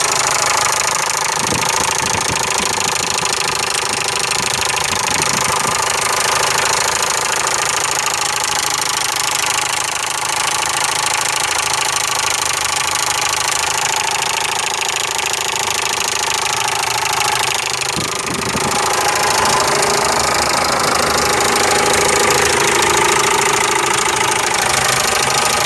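Ford Ranger engine running with a steady clattering, knock-like noise, the strange noise it makes at times after a few kilometres of driving in the morning. It briefly dips about 18 seconds in and is a little louder after that.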